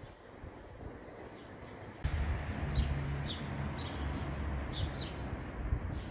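Small birds chirping: short, high, downward-slurred calls, several in a row, from about two seconds in, over a low steady rumble of outdoor ambience.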